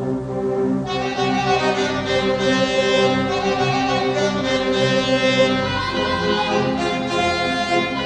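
Orchestral music led by violins over a bowed string section, playing sustained notes; the strings grow brighter about a second in.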